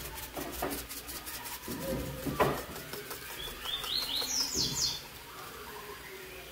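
A cooking spoon scrapes and knocks against a pot while shredded chicken is stirred, with one sharp knock about two seconds in. Near the middle a bird chirps a quick run of short, high notes that step upward.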